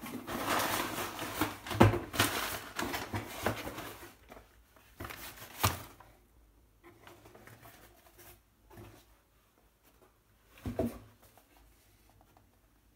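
Cardboard shipping box being opened and handled by hand. For the first four seconds there is dense scraping and rustling of cardboard with a sharp knock, then sparser knocks and a thump near the end.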